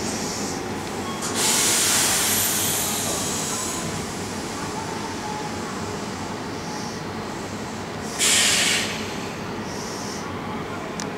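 Odakyu 1000-series electric train standing at the platform with a steady background hum. Compressed air hisses loudly about a second and a half in and fades over a couple of seconds. A shorter, sharper air hiss follows about eight seconds in.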